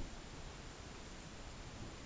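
Faint steady hiss of room tone, with no distinct handling sounds standing out.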